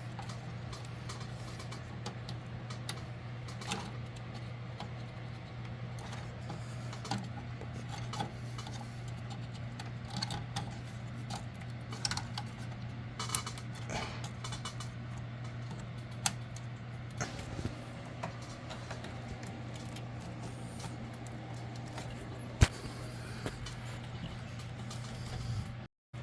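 Scattered small clicks and clatters of computer parts being handled and fitted into a PC case, over a steady low hum; a brief dropout near the end.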